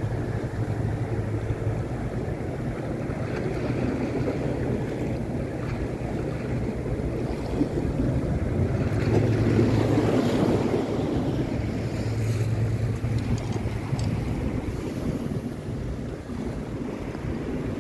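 Wind buffeting the microphone, with sea waves washing against breakwater rocks and a low hum that comes and goes underneath.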